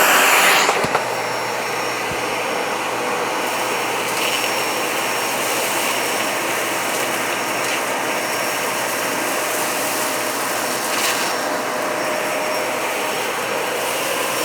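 Dyson Ball Animal 3 upright vacuum cleaner with an 11-amp motor, running steadily and sucking up a floor mess of hair, kitty litter and confetti. A steady airy rush with a faint high whine, louder for the first second as it comes up to speed.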